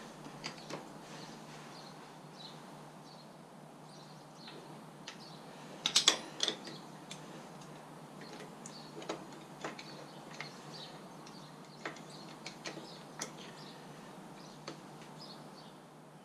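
Scattered metallic clicks and clinks of a thin flat headset spanner working on a bicycle headset lock nut, with a short cluster of louder clinks about six seconds in.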